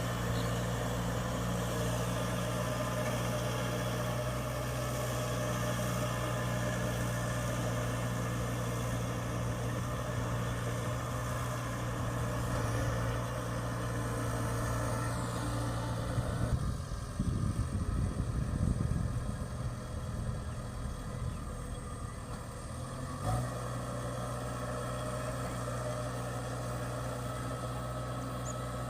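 Kubota rice combine harvester's diesel engine running with a steady hum. From about sixteen seconds in, it gives way for several seconds to an uneven low rumble. After a short knock, the steady running returns.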